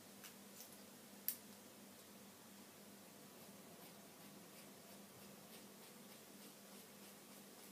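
Near silence, broken by a few faint snips and one sharp click about a second in, from hair-cutting shears closing on hair.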